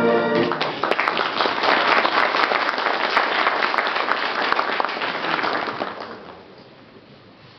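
Audience applauding, many hands clapping at once, starting as group singing ends about half a second in and dying away about six seconds in.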